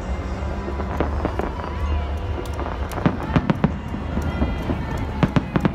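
Aerial fireworks going off overhead: a rapid series of sharp cracks and bangs from about three seconds in, over a steady low rumble.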